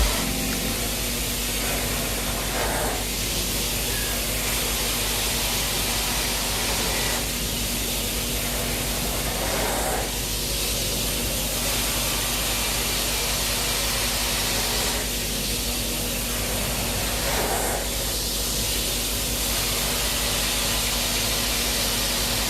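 Carpet-cleaning extraction wand pulling air and water under vacuum: a steady hiss over a constant hum, swelling slightly about every seven seconds as each pass is made.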